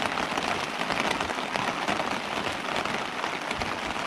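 Heavy rain hammering down on a tent, heard from inside as a dense, steady patter of drops on the fabric.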